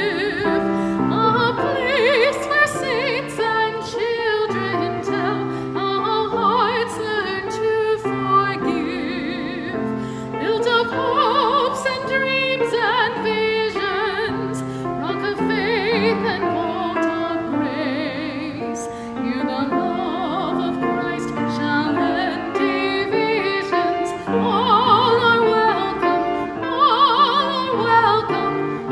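A woman singing a hymn solo in a classical, operatic voice with vibrato, over a sustained instrumental accompaniment.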